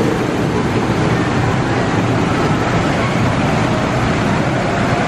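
Steady loud rumbling din of a small caterpillar kiddie coaster train running around its track, in a noisy indoor fairground.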